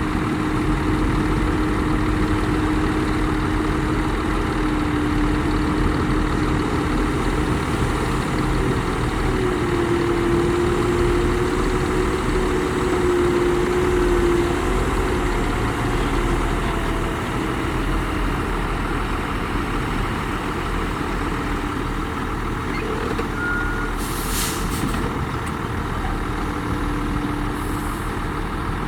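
Heavy diesel earthmoving machinery running steadily under load, with a held engine tone that rises slightly for a few seconds near the middle. A short hiss of released air about three-quarters of the way through, and a fainter one near the end.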